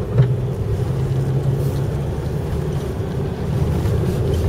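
Steady engine drone and tyre rumble heard from inside the cab of a 4x4 truck driving slowly over a rough dirt track, with one brief bump just after the start.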